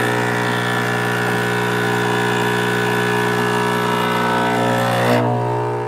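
Espresso machine's vibratory pump humming steadily as it pushes water through the portafilter during a shot. About five seconds in, the hiss over the hum drops away and the hum carries on.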